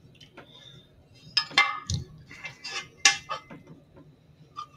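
Metal parts of a TV stand clinking and knocking as a black steel leg and a perforated mounting bracket are handled and fitted together for screwing. Sharp clinks come in a cluster about a second and a half in, with a duller knock just after, and again around three seconds.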